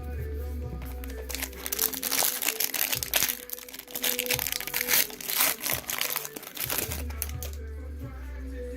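Foil trading-card pack wrapper crinkling and tearing as it is opened, a dense run of crackles lasting several seconds, over background music with a steady low bass.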